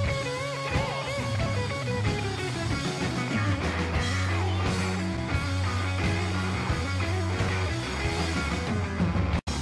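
Rock music with guitar over a steady bass line. It drops out for an instant near the end.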